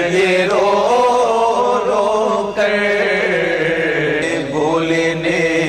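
Naat chanting: a male voice sings long, wavering held notes without clear words over a steady low hum, with no instruments.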